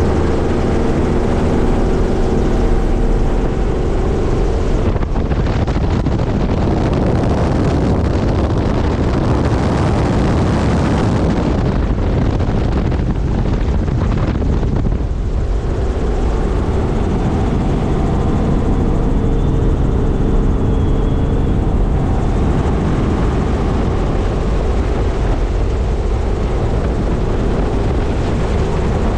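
Helicopter engine and rotor running loud and steady, heard from inside the cabin as it lifts off and climbs. From about five seconds in, a broad hissing noise rises over the hum for about ten seconds, then eases.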